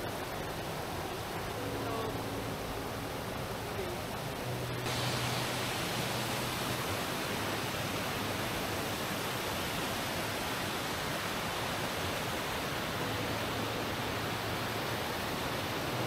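Steady rushing of a small waterfall, the noise growing louder and brighter about five seconds in.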